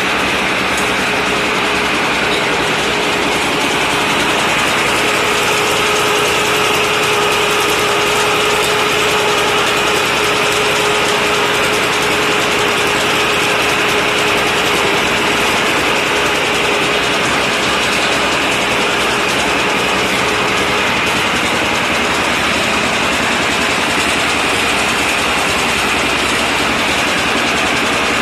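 A homemade water-well drilling rig running, its engine driving an open bevel gear head that turns the drill rod: steady engine and gear noise, with a held tone that fades out about twenty seconds in.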